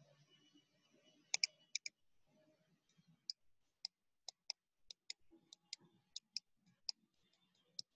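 Computer mouse button clicking: short, sharp clicks, many in quick press-and-release pairs, repeating about every half second as a dashed line is drawn stroke by stroke.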